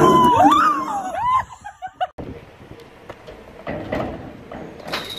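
A woman's high, sliding scream lasting about a second and a half, then cut off suddenly. After it, only quieter background noise with a few faint knocks.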